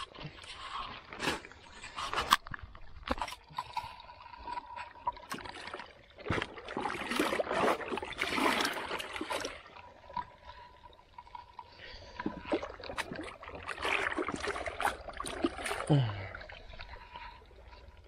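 Shallow pond water splashing and sloshing in irregular bursts as a plastic crate is pushed and moved through it, with occasional knocks.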